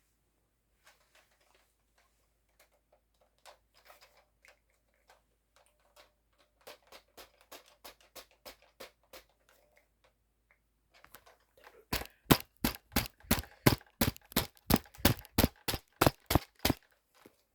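A series of sharp taps or clicks, faint and scattered at first, then a run of loud, even taps at about four a second for several seconds near the end.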